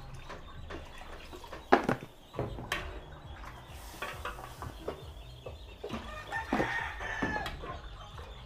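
Chickens clucking and calling, with a longer call that may be a rooster crowing in the second half, and a couple of sharp knocks in the first few seconds.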